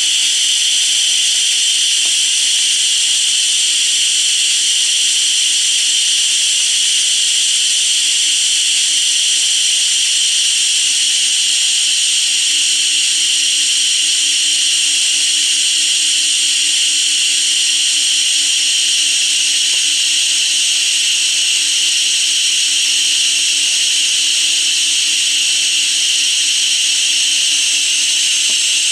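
The DCC sound system of an On30 0-4-2 Porter model steam locomotive plays a steady steam hiss through the model's small speaker, with a faint even hum under it. The locomotive is standing still, and the hiss has no exhaust beats in it.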